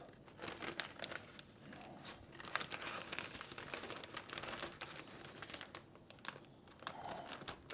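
Plastic packaging crinkling and rustling in irregular crackles as packaged stew meat is handled.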